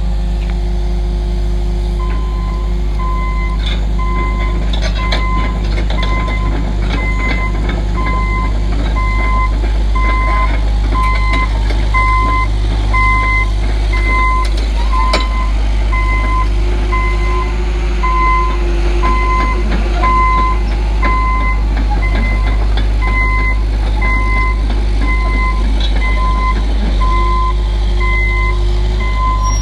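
John Deere 160D excavator's diesel engine running under a steady string of warning-alarm beeps, about one and a half a second, starting about two seconds in while the machine moves. A few clanks come through.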